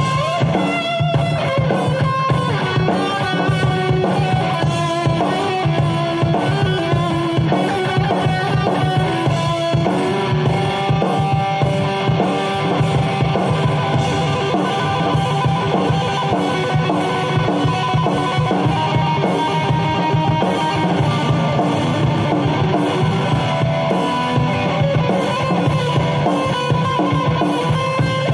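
Kramer Assault 220 FR electric guitar being played along to a drum-kit backing, with fast-changing notes over a steady, busy beat.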